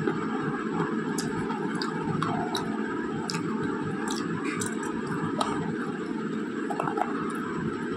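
Slate pencil being bitten and chewed: irregular, crisp little crunches and clicks, several a second at times, over a steady background noise.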